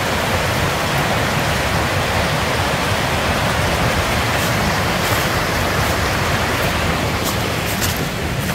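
Steady rushing of a waterfall, an even noise with no rise or fall, and a few light clicks near the end.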